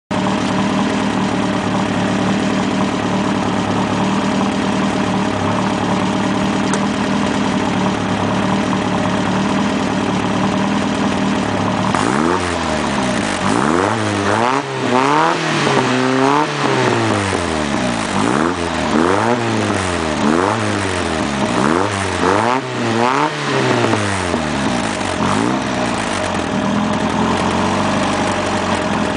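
Marlin Roadster's engine running through its twin-tailpipe exhaust: a steady idle, then, about halfway through, a series of quick revs, each rising and falling in pitch, before it settles back to idle near the end.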